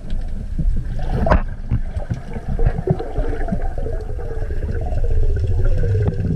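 Underwater sound picked up by a diving camera: a low, muffled water rumble with scattered clicks, one sharper click about a second and a half in, and a faint droning tone that slowly falls in pitch over the second half.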